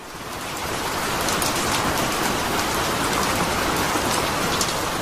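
Steady rain, an even hiss with many small drop ticks scattered through it, fading in over the first second.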